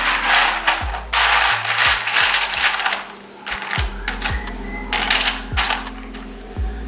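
Keycaps being pulled off a keyboard with a wire keycap puller: irregular plastic clicks and scraping, over background music with a steady beat.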